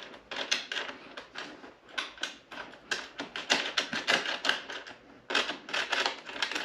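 Rapid clicking in irregular runs from a ratchet wrench working small bolts out of a motorcycle's tail section.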